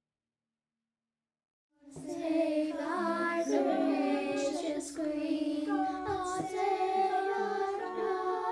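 Silence for about two seconds, then children singing a tune.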